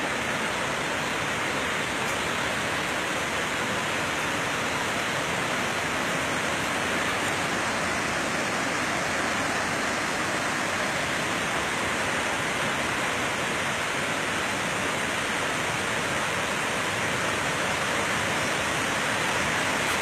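Steady rushing of a tall waterfall, about 150 metres high, getting a little louder near the end.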